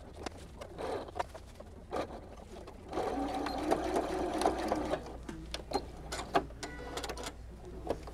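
Janome computerized sewing machine stitching through layers of fabric in short runs, the longest and loudest about three seconds in and lasting some two seconds, with scattered sharp clicks between the runs.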